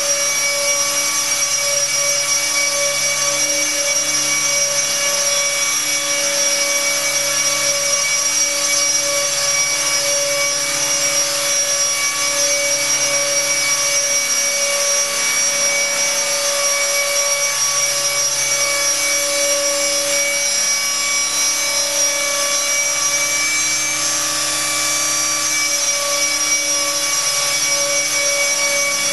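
Align T-Rex 600 electric RC helicopter running with its rotor spinning at speed: a steady high-pitched whine from the electric motor and drive gears over the rush of the rotor blades, holding an even pitch.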